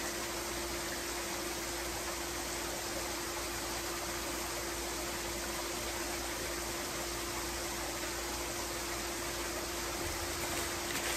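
Backyard pool's rock waterfall spilling into the pool: a steady, even rush of falling water, with a faint steady hum underneath.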